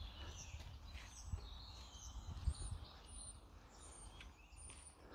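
Small birds chirping in many short, high calls. A few low thuds sound underneath.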